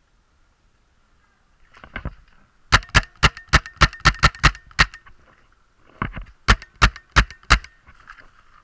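Paintball markers firing: a rapid string of about nine sharp shots, then after a short pause about five more.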